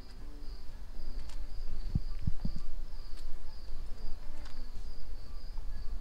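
Insects chirring in a steady high trill that pulses about twice a second, over a low outdoor rumble, with a few soft thumps about two seconds in.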